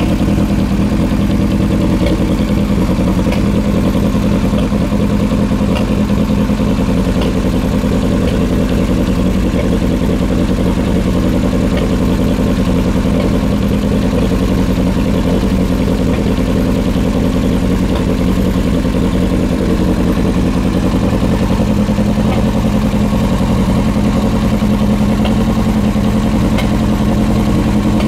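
Yamaha R1 inline-four motorcycle engine idling steadily through a Yoshimura aftermarket exhaust, with no revving.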